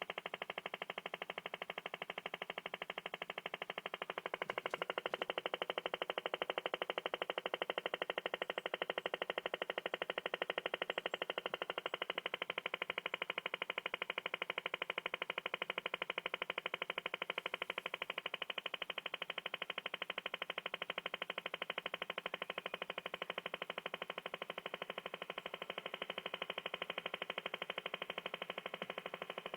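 Cyprus over-the-horizon radar signal received on a shortwave receiver in the 11 m band, a fast, even tapping pulse train in woodpecker mode, like the old Soviet Woodpecker radar. It keeps going without a break and gets slightly louder about four seconds in.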